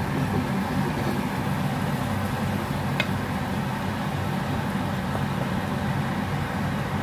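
Steady whirring hum of a kitchen fan running, with a single sharp click about three seconds in, as a wooden spoon stirs thick porridge in a saucepan.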